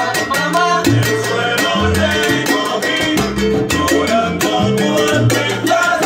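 Live salsa band playing: congas and timbales with cymbal keep a steady beat over a bass line, with a melody on top.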